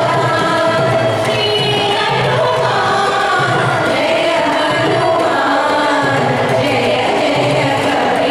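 Large student ensemble performing Carnatic music in unison, the melody gliding between notes over a steady low beat about once a second, with a mridangam drum visible among the players.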